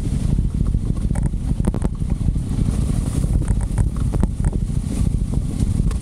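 Motorcycle on the move with heavy wind buffeting on the microphone, a steady low rumble, and scattered short clicks and knocks throughout.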